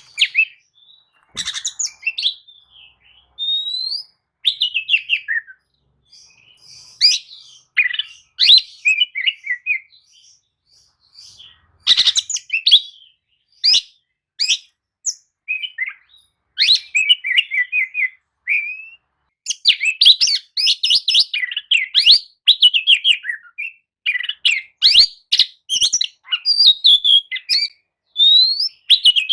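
Oriental magpie-robin singing a long, varied song of whistled notes and rapid chattering phrases. The phrases come in bursts with short pauses and run almost without a break in the second half.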